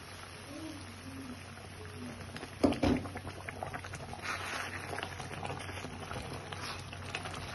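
Thick meat-and-tomato sauce simmering and bubbling in a pan, stirred with a wooden spatula. There is a sharp clatter about two and a half seconds in.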